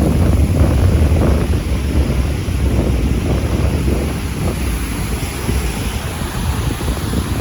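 Wind buffeting the phone's microphone, a loud steady low rumble with rushing noise over it, easing slightly about halfway through.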